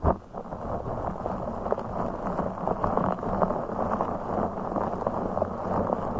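Close-miked ASMR handling of a blue fish object: continuous dense rubbing and crackling with many small ticks, held to the low and middle range.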